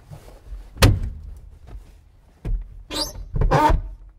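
A sharp knock about a second in, then near the end a donkey-bray sound effect: a short high squeal followed by a longer hee-haw.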